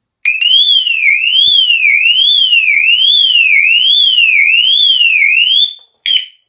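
Lynteck burglar alarm box sounder sounding, set off by reconnecting its backup battery: a loud electronic tone sweeping up and down, one rise and fall about every 0.8 seconds. It cuts off near the end, followed by one short chirp.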